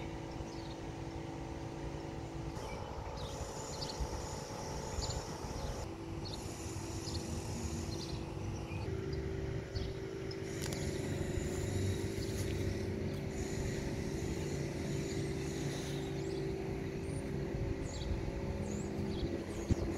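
2012 Ford F-250's gasoline engine idling with a steady hum, its pitch stepping slightly a few times.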